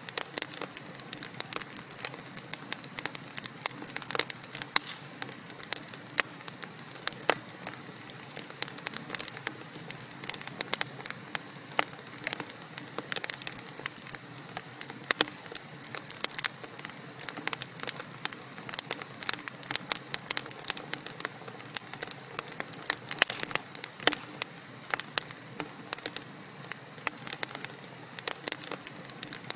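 Wood fire in a fireplace crackling: many sharp, irregular pops and snaps from the burning logs over a steady low hiss of flame.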